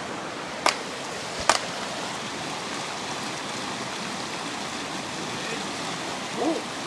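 River rapids rushing steadily, with two sharp hand claps under a second apart in the first couple of seconds. A brief voice sounds near the end.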